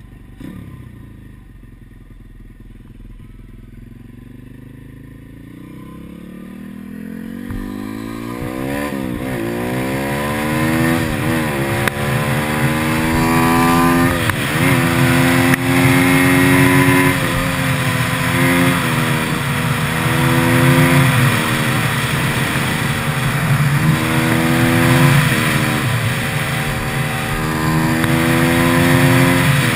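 Gio X33 140 cc pit bike's single-cylinder four-stroke engine accelerating hard through the gears: quiet at first, then the pitch climbs with a dip at each of three shifts, and it holds high revs near full throttle with only small dips, with wind rushing over the microphone.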